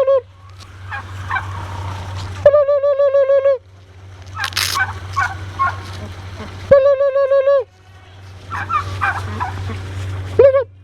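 Domestic turkey gobbling: three loud, fast-warbling calls about a second each, the last one short, with quieter rattling chatter between them.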